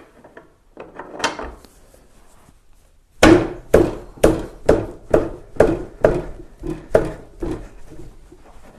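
One knock, then a steady run of about a dozen sharp metallic knocks, a little over two a second, each with a short ring, as a 32 mm wrench works a motorcycle's rear axle nut loose.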